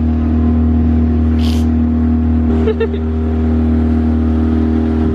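Small motorboat's engine running steadily at speed, a constant low drone with a steady pitch. A short hiss cuts in about one and a half seconds in.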